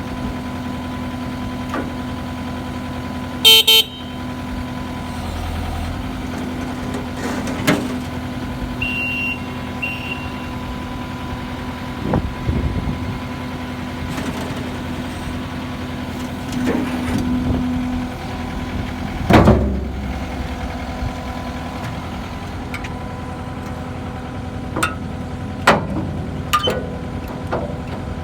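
Kubota SSV75 skid steer loader's diesel engine running steadily as it works, with several short knocks and clanks along the way and a short loud beep about three and a half seconds in.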